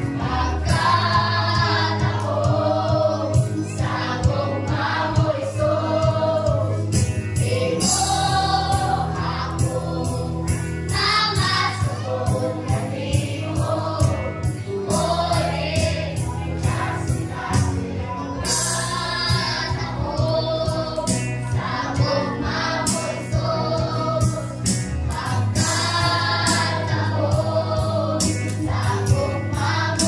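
A choir singing a Christian hymn, with mostly female voices over long held low accompaniment notes that shift every few seconds.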